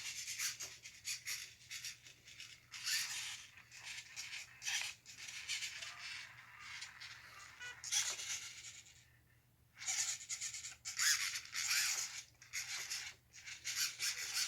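Small hobby servos in a 3D-printed robot arm moving in short, irregular, high-pitched whirring bursts with brief pauses, jittery because the nearly dead batteries are not supplying enough power.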